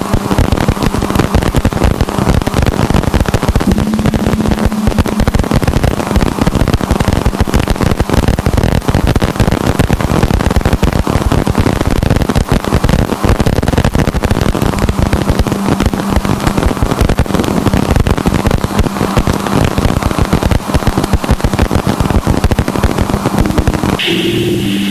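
Sonified spacecraft radio and plasma-wave recording of Uranus from Voyager 2: dense, irregular crackling static over a faint steady hum. Near the end it gives way to a steadier whirring with a low hum and a high hiss.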